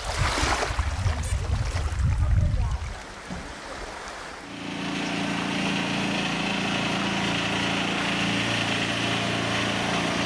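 Seaside ambience for the first few seconds: an uneven low rumble with a hiss of waves and wind. About four and a half seconds in, background music enters with a steady held chord.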